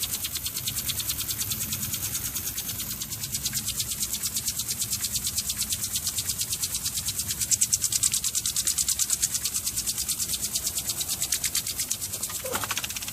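Rotating hydro-jetting nozzle spinning on about 60 psi of water pressure, its jets spraying with a hiss that pulses fast and evenly as they sweep round.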